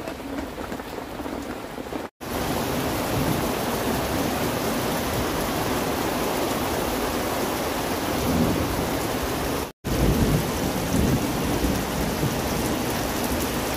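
Heavy rain pouring steadily. It drops out for an instant twice, about two seconds in and again near ten seconds.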